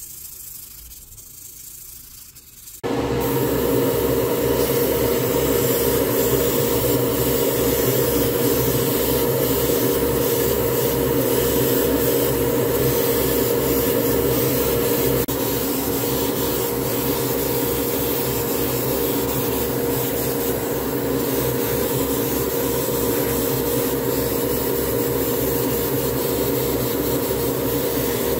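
Sandpaper rubbing on a resin model car body, then about three seconds in an airbrush compressor starts suddenly and runs steadily. It has a hum and a fast, even low pulsing, with the hiss of the airbrush spraying paint over it.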